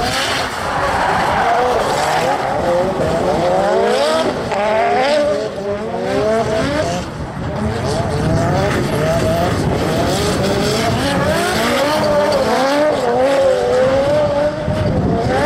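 Nissan S13 drift cars sliding in tandem, their engines revving up and down quickly and repeatedly as the throttle is worked through the slide, over the screech of tyres spinning and squealing on the asphalt.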